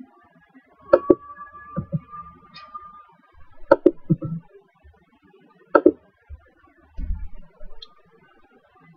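Three sharp computer-mouse clicks, a couple of seconds apart, with a few faint low knocks and a brief faint steady tone between the first two clicks.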